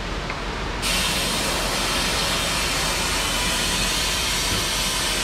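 Compressed-air fogging gun blowing a mist of oil undercoating into the inside of a pickup tailgate through its drain hole. It makes a steady hiss that starts abruptly about a second in.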